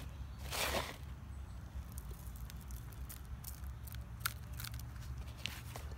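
Crushed eggshell crumbled between fingers and sprinkled onto potting soil, giving small scattered crackles and ticks. There is a brief rustle about half a second in, over a low steady rumble of wind or handling on the microphone.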